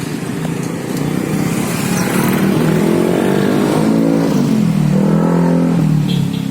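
A motor vehicle engine revving, its pitch rising and falling and then settling lower for a few seconds before easing off near the end.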